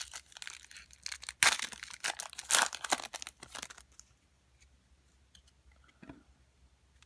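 Plastic wrapping on a pack of football trading cards being torn open and crinkled in the hands, in quick rustling bursts that stop after about four seconds, leaving only a few faint clicks.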